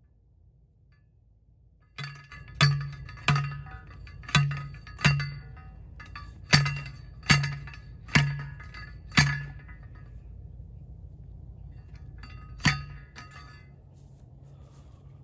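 Hand post driver slammed down onto the top of a Timeless PVC fence post, driving it into the ground. Nine clanking blows that ring briefly: eight in quick succession, then a last one after a pause of about three seconds.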